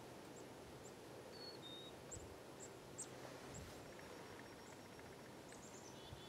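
Near silence: faint outdoor ambience with small birds chirping faintly and irregularly, plus a couple of short whistled notes.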